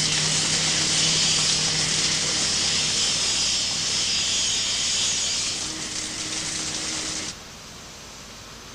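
Steady hissing machine noise from a concrete slab pour, with a low hum that fades in the first second. It cuts off sharply about seven seconds in, leaving a quieter steady background.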